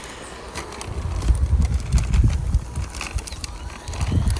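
Hoverboard-wheel RC chassis rolling off concrete onto grass and dirt, its tyres making scattered clicks and crackles over the rough ground. Under it, an uneven low rumble of wind on the microphone swells and fades.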